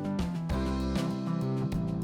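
Background music: guitar-led instrumental with strummed chords.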